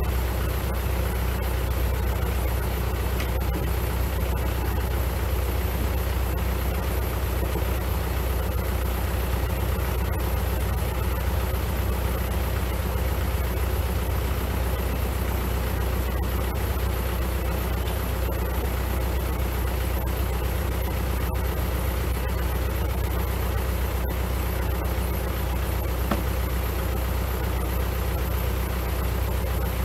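Kubota L4701 tractor's diesel engine idling steadily, a constant low rumble.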